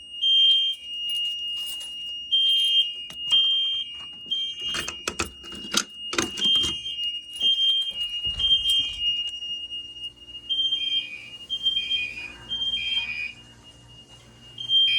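Loud fire alarm horns sounding the temporal-three evacuation signal: groups of three high beeps and a pause, repeating about every four seconds, with a steady high tone under them that stops about ten seconds in. The system is in alarm after a manual pull station was pulled. A burst of clattering handling noise comes around five to seven seconds in.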